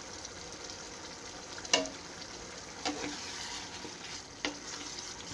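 Potato curry simmering and bubbling in a pan with a steady hiss, stirred with a wooden spatula. Three sharp knocks against the pan, the first and loudest about a second and a half in, ring briefly.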